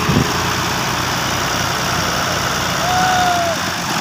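Diesel tractor engines running steadily while an Al-Ghazi tractor pulls a chained tractor out of deep mud. A short high call rises and falls about three seconds in.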